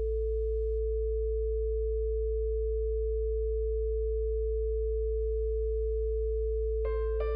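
Steady electronic sine tones of a 55 Hz sound-therapy track: a deep low hum under a steady mid-pitched tone. Soft piano notes come in near the end.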